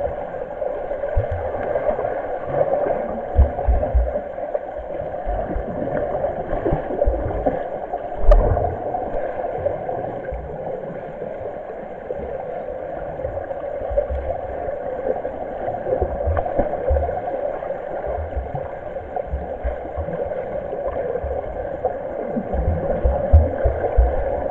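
Swimmers kicking and turning in a pool, heard through an underwater camera: a steady muffled churning and gurgling of water, with scattered dull low knocks, a stronger one about eight seconds in and several near the end.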